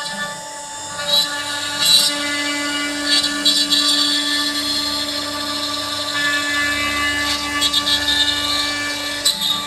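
CNC router carving ash wood: a steady spindle whine, with brief louder bursts of cutting noise as the bit works the board.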